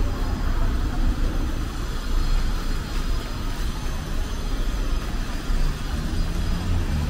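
City street traffic: a steady rumble of passing vehicles, with a low engine hum coming in about five and a half seconds in.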